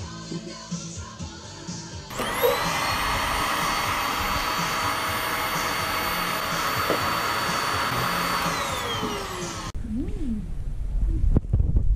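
A vacuum cleaner motor switched on about two seconds in, whining up to speed, running steadily for several seconds, then switched off and winding down in pitch shortly before the end.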